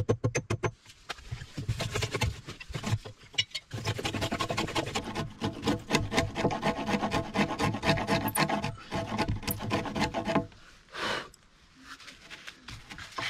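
Wood chisel paring and scraping along a larch beam as a notch is cut out by hand: a dense rasping scrape. It follows a quick run of hammer taps on the chisel that ends under a second in.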